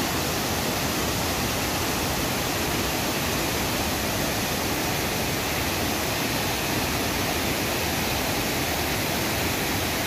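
A wide waterfall pouring over a rock ledge onto rocks and a pool: a steady, even rush of falling water.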